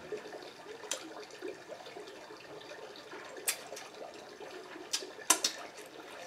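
Wet, close-up eating sounds from a mouth chewing buttery seafood boil and licking sauce from the fingers, with several sharp wet smacks and clicks, three of them close together about five seconds in.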